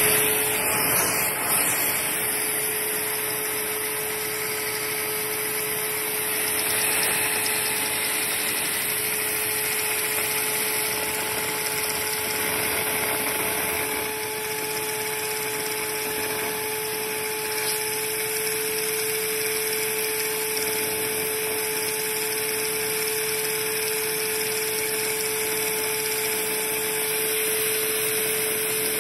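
Shop vac running steadily and kind of loud, a constant hiss of rushing air with a steady motor whine that holds one pitch throughout. Its suction is driving a LEGO one-cylinder oscillating vacuum engine.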